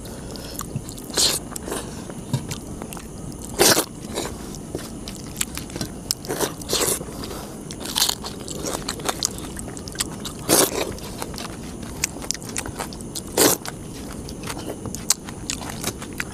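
Two people eating crab curry and rice by hand, with close chewing and biting sounds. A sharp crunch comes every couple of seconds.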